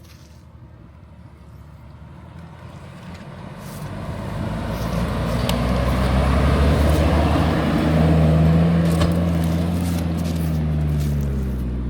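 Fiat 126p's small two-cylinder air-cooled engine running hard under load on a sandy climb, growing steadily louder over the first half and loudest about eight seconds in, its pitch sagging slightly near the end.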